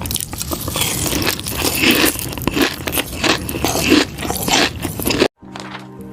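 Close-miked biting and chewing of crunchy pickled fish skin: dense, crackly crunches. These cut off suddenly about five seconds in, and music begins near the end.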